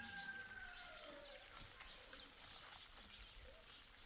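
A faint, long drawn-out animal call, held level and then falling away about a second and a half in, with small bird chirps scattered throughout.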